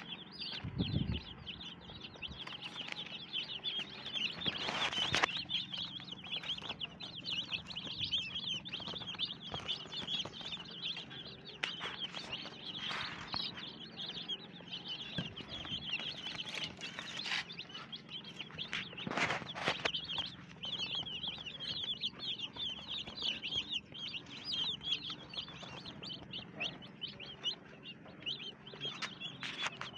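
A brood of young chicks peeping continuously, many high-pitched cheeps overlapping. A few brief, louder rustles break in, about five seconds in and again near the middle.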